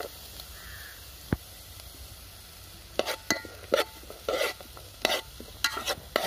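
A spoon stirring and scraping chopped onion and garlic in hot olive oil in a metal pot, over a light sizzle. The scraping comes in a quick series of strokes from about halfway through.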